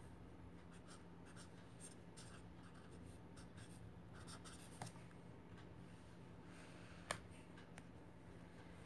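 Black marker pen scratching faintly on paper in short strokes as numbers are written out, with two light clicks about five and seven seconds in.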